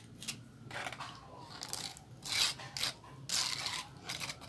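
Thin, runny cement-sand slurry being spread and scraped along a board around the base of a sand mould: a run of short, uneven scraping and rubbing strokes.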